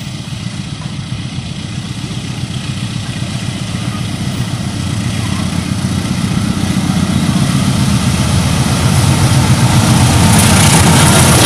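KAI CC204 diesel-electric locomotive hauling a train of tank wagons on its approach, its diesel engine running with a steady low rumble that grows steadily louder as it nears. Near the end a harsher hiss of wheels on rail joins in as it draws level.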